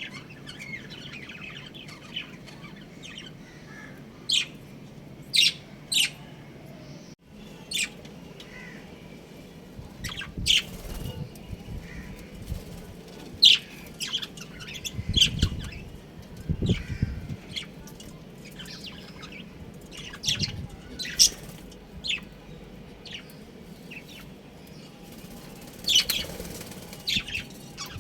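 Budgerigars chirping in short, sharp, high calls scattered irregularly, with a few soft low flutters near the middle.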